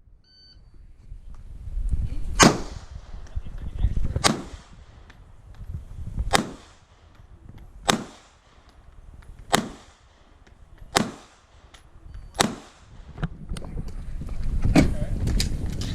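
Pistol shots fired one at a time at a steady pace, about seven sharp cracks every second and a half to two seconds, with fainter cracks near the end and a low rumble between shots.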